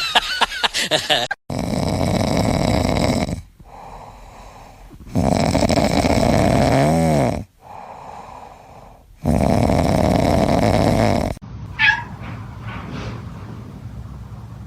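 Cat snoring: three long, loud, rasping breaths about four seconds apart, with quieter breaths between them. A brief high call comes near the end.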